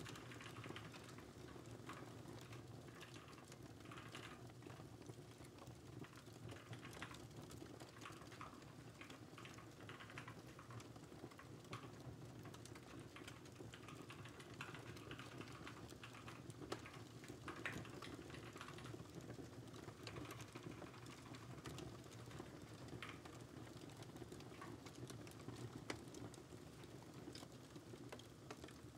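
Faint typing on a computer keyboard: quick clicks in uneven runs over a steady low fireplace rumble. A few sharper crackling pops stand out.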